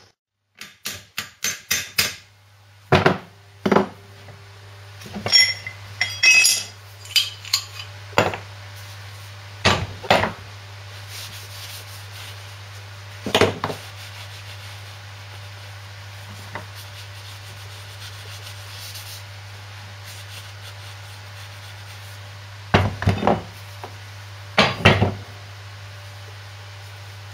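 Hammer taps and metallic knocks on steel as a worn ball bearing is knocked off a vintage Lister D engine's crankshaft held in a bench vise. A quick run of about seven light taps comes first, then single blows, some of them ringing, and two short clusters near the end.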